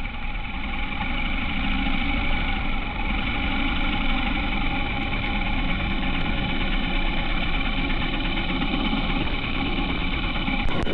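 Honda H'ness CB350 single-cylinder motorcycle engine running steadily at an even speed.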